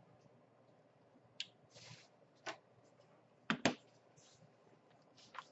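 Hands handling small objects on a workbench, including multimeter test probes being picked up: scattered light clicks and brief rustles, with a sharp double click about three and a half seconds in.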